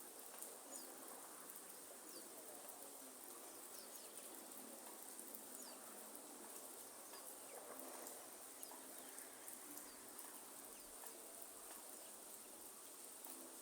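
Faint rainforest ambience: a steady high-pitched insect drone with short falling chirps repeating every second or so.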